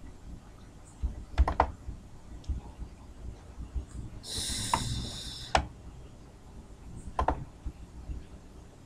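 Scattered single clicks at a computer, a handful spread through, with a brief high hiss a little past four seconds in.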